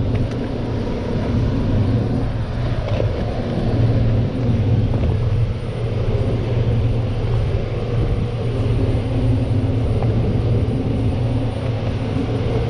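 Boat engine running steadily with a low, even hum, under a wash of wind and water noise.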